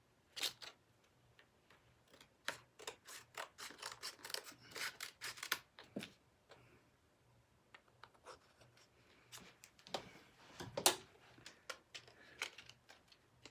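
A package being worked open by hand: irregular clicks, crinkles and rustles of packaging, with a busy run a few seconds in and one louder snap near the end.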